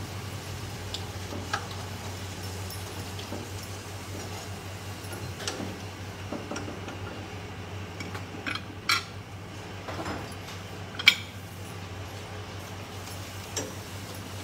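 A metal slotted spoon clinking against the wok and a plate while deep-frying puris, in several separate clinks with the loudest about eleven seconds in. A steady low hum runs underneath.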